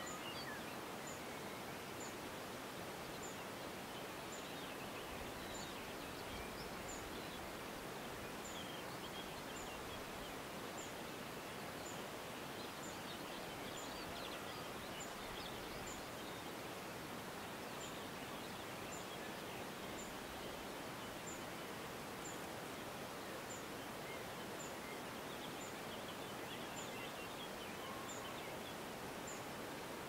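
Steady outdoor country ambience: an even hiss of open air with faint, scattered distant bird chirps. A faint, very high tick repeats about once a second.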